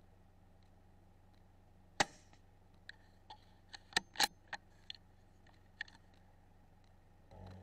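A single sharp rifle report from a CZ 457 .17 HMR rimfire about two seconds in, then a quick run of metallic clicks over the next three seconds as the bolt is worked to chamber the next round.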